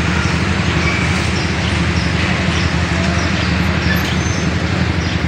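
Steady outdoor background noise: a heavy low rumble with an even hiss over it, with a few faint, short high chirps now and then.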